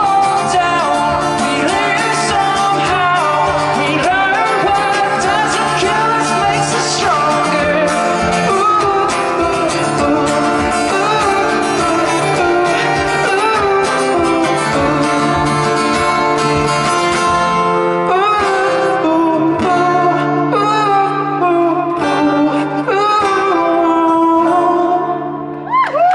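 Live band music with guitar and voice over a held low bass note, the closing stretch of a song; the music thins and stops near the end.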